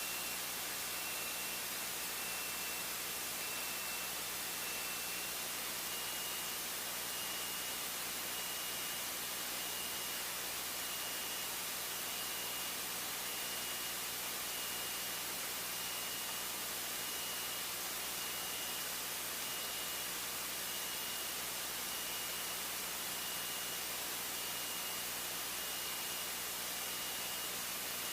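Steady hiss of a light aircraft's headset intercom feed, with a thin steady whine and a faint engine drone under it.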